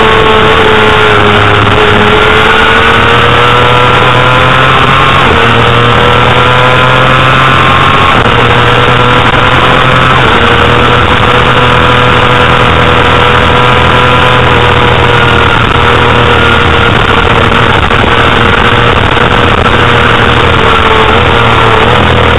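Honda CBR250RR's 250 cc inline-four engine running at high revs under racing load, heard from on board the bike. Its high pitch holds steady but dips and steps up and down a few times, over a constant rushing noise.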